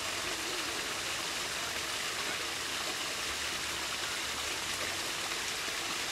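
Steady, even rushing noise with no distinct events, like running water or outdoor hiss.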